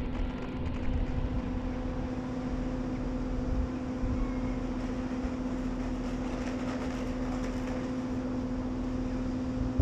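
Diesel passenger train running at the station platform: a steady engine hum with a low rumble beneath.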